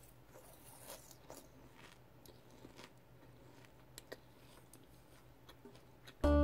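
Crisp, toasted dry green laver flakes and sesame seeds stirred in a frying pan, giving faint scattered crunchy crackles and light clicks of the tongs. Acoustic guitar music starts abruptly right at the end.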